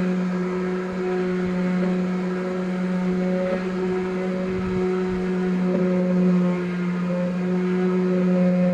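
Electric orbital sander running steadily while sanding down paint, its motor giving a constant hum with a few overtones above it.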